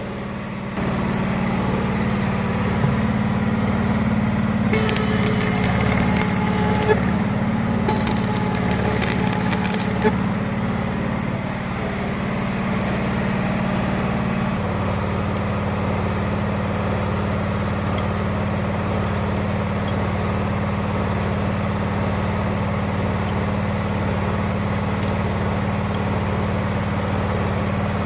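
Two short bursts of arc-welding crackle, each about two seconds long, as weld is laid onto a broken bolt to extract it. An engine runs steadily underneath and changes its note about halfway through.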